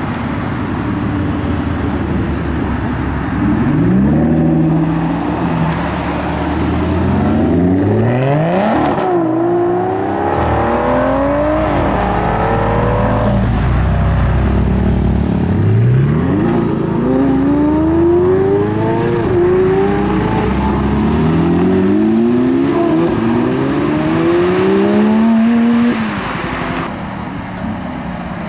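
Supercar engines accelerating hard away through the gears, the revs climbing and dropping back at each upshift. This happens in two runs, the second starting about halfway through.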